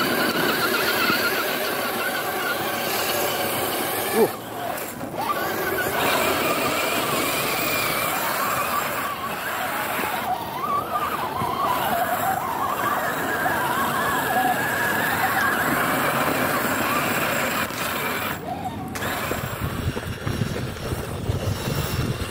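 Scale RC crawler's electric motor and gearbox whining, the pitch rising and falling with the throttle, with one sharp knock about four seconds in.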